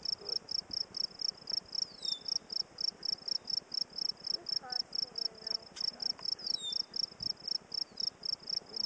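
Steady high-pitched insect chirping, about four chirps a second, with a short falling whistle heard twice.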